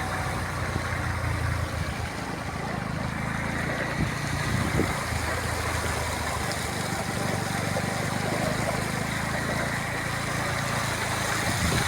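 A motor engine running steadily at a low pitch, with outdoor noise around it.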